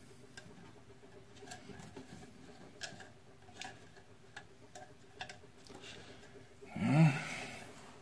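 Scattered light plastic clicks and ticks as a portable air conditioner's squirrel-cage blower wheel is handled and turned by hand. About seven seconds in, a short hummed voice sound from a person is the loudest sound.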